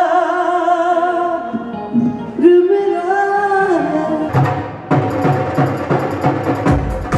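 A vocalist singing long held notes of a slow Punjabi song with a live band. About four seconds in, the band kicks in with a steady, driving drum beat.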